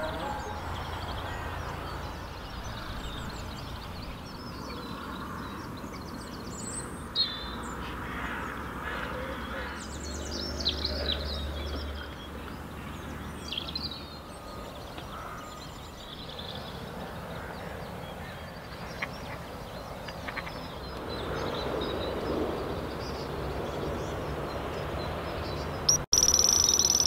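Lakeside ambience with scattered birdsong over a steady background rush. About a second before the end, a carp bite alarm on the rod pod breaks in with a sustained high tone as a fish runs with the bait.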